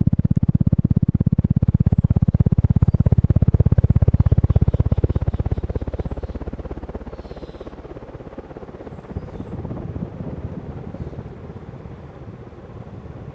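Antica 42-inch ceiling fan running, giving a low, fast, even throbbing. The throbbing is loud for about five seconds, then drops off to a softer level.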